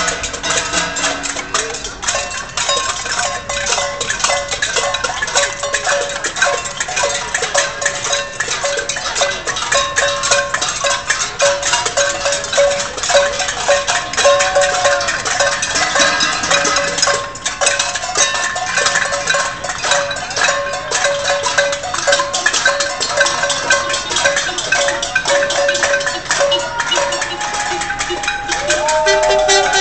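Pots and pans being banged in a casserole protest march: a dense, irregular clatter of metal strikes, each with a ringing tone.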